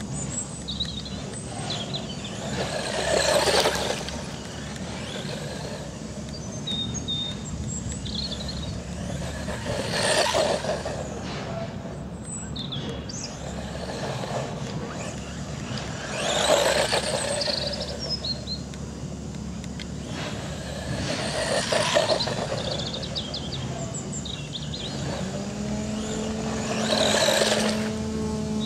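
FTX Tracer brushed-motor RC buggy running laps on a dirt track, its motor and tyre noise swelling five times as it passes, about every six seconds. Birds chirp faintly between the passes over a steady low hum, and a low steady drone comes in near the end.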